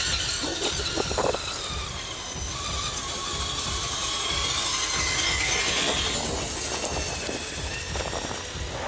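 Electric motor whine of a radio-controlled car, its pitch gliding up and down as it speeds up and slows, over a steady rushing noise, with a few short knocks.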